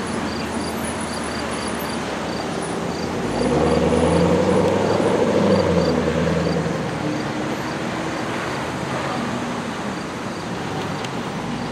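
Road traffic at an intersection: a steady hum of passing vehicles, with one car's engine and tyres growing louder for about three seconds as it drives past, starting about three and a half seconds in. Faint, regular high ticks run through the first few seconds.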